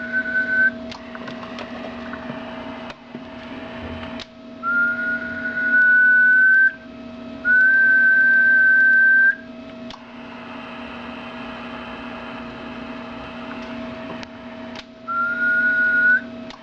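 A person whistling steady notes into the microphone of a Kenwood TS-430S HF transceiver to drive its SSB output, a whistle test of peak transmit power. There are four held whistles of one to two seconds, each rising slightly in pitch, with sharp clicks and a steady hum and hiss between them.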